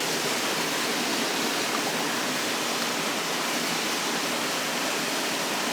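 Waterfall flowing heavy: a steady, even rush of falling water.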